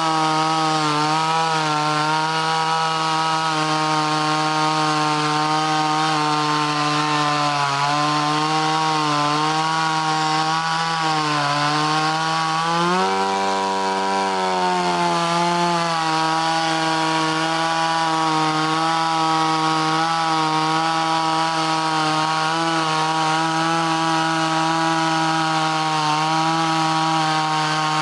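Small 25cc two-stroke top-handle chainsaw running at high revs while cutting through a log, its pitch wavering slightly as the chain bites. About thirteen seconds in the engine speed rises for two or three seconds, then settles back to its cutting pitch.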